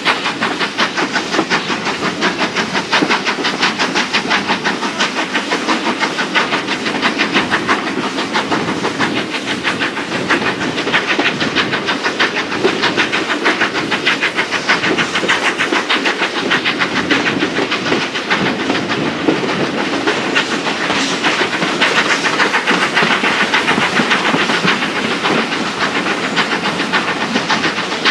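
BR Standard 4 class 2-6-0 steam locomotive No.76084, a two-cylinder engine, working a passenger train, heard from a carriage window: a steady, rapid beat of exhaust with steam hiss over the clatter of the carriage wheels on the track.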